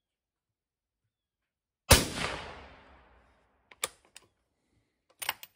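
One suppressed rifle shot, 168-grain ELD Match load, about two seconds in, its crack echoing and dying away over about a second. A few sharp clicks follow about two and three seconds later.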